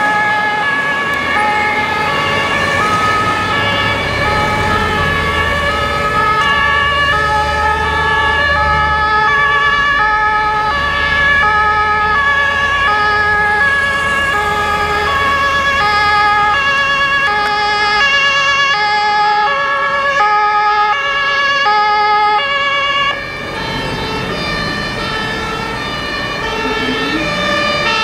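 Two German two-tone fire service sirens (Martinshorn), one a Hella siren horn, sounding at once and out of step. Each alternates steadily between a high and a low tone. A low traffic rumble runs underneath, and the level drops a little near the end.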